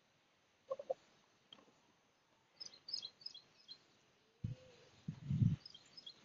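Small birds chirping in quick, high clusters, with three short pitched notes about a second in and low, dull rumbling thuds near the end.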